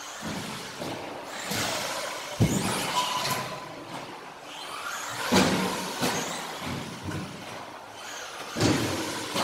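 Battery-powered radio-controlled off-road cars running on a carpet track: a rushing motor and tyre noise, with a sharp thud about two and a half seconds in, another about five seconds in, and another near the end.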